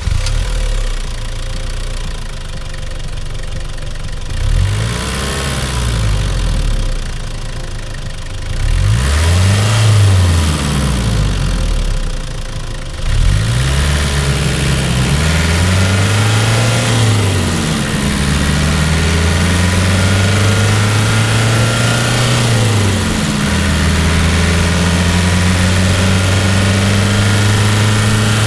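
Nissan Terrano II's 2.7-litre four-cylinder turbodiesel idling, revved up and back down four times, then held at a steady raised speed for the last third.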